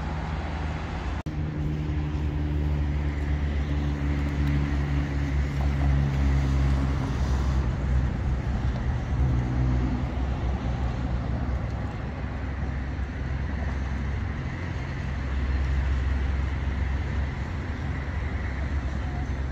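Road traffic: cars and other vehicles passing, a steady low engine hum that swells and fades over several seconds. The sound cuts out briefly about a second in.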